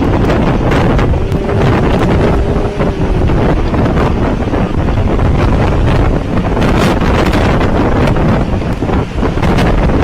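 Hurricane wind blasting the microphone: loud, constant rumbling wind noise with gusts. A faint whistling tone holds for a second or two near the start.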